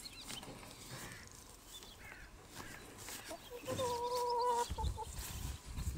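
Black Rock hens clucking softly, with one longer held call about two-thirds of the way through. A low rumble joins near the end.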